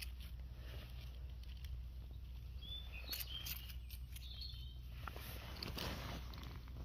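Dead leaves and twigs rustling and crackling as a hand clears the forest floor around a mushroom, with a few short bird chirps in the middle.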